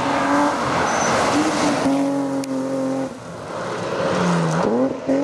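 BMW rally cars driving hard on a gravel stage: engines held at high revs over a steady hiss of tyres on gravel. The sound dips briefly about three seconds in, and near the end the engine note drops and then climbs again.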